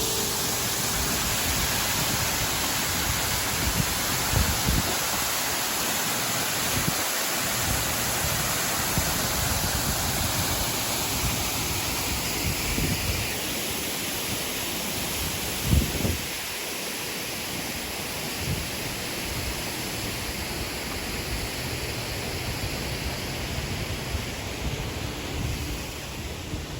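Steady rushing of falling water, an even roar with no pauses, with a few brief low bumps, the loudest about 16 s in.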